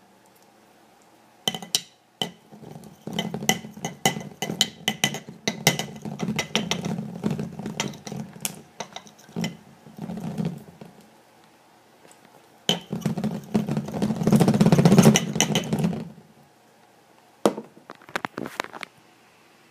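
Glass clinking and rattling against a hard surface. It starts with a couple of single clacks, then comes a long run of rapid clattering and a second, louder run, and a few last clacks near the end.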